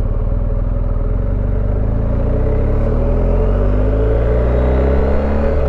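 BMW R 1250 GS Rallye's boxer-twin engine pulling hard, its note rising steadily as the motorcycle accelerates, over a rush of wind and road noise.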